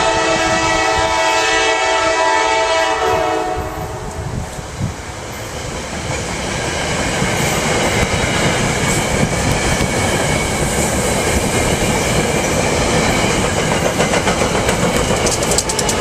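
A train horn sounds one long chord of about four seconds as a SEPTA push-pull commuter train approaches, then the train of Comet coaches pushed by an AEM-7 electric locomotive passes close by, its wheels running and clicking over the rail joints, growing louder about halfway through.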